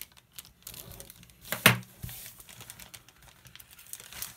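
Plastic model-kit sprues being handled: small clicks and light crinkling of the parts and their plastic bag, with one sharp clack about a second and a half in.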